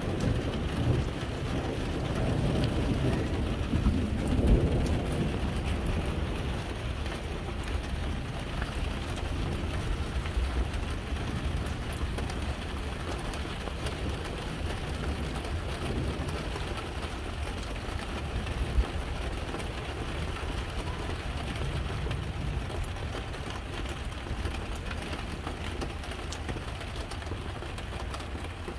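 Steady rain falling during a thunderstorm, with a low rumble of thunder in the first few seconds that swells about four seconds in and then dies away.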